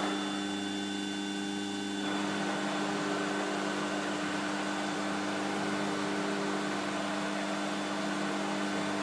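Large face lathe's electric drive running with a steady hum, a broader whirr joining about two seconds in.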